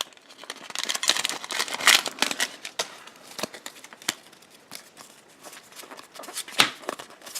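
Foil booster pack wrapper crinkling and rustling as it is handled and opened, with a burst of dense crackling about a second in and a couple of sharper snaps near the end.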